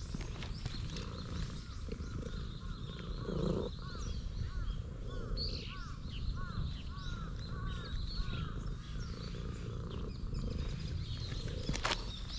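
Domestic cat purring loudly while being stroked: a steady low rumble. Over it a bird calls a quick run of short, repeated chirping notes through the middle.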